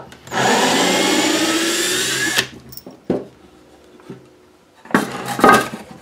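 Cordless drill boring a hole through a pine board for about two seconds, its whine rising slightly as it runs. A few knocks and clatter follow as the wood is handled.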